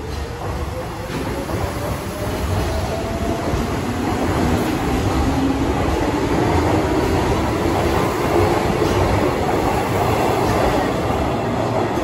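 Hanshin 8000 series electric train accelerating away from the platform: traction motor whine rising steadily in pitch over wheel rumble and clatter on the rails, growing louder as the cars pass, echoing in an underground station.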